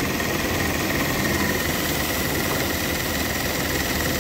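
Automatic industrial sewing machine running: a steady mechanical hum with a thin, high whine over it.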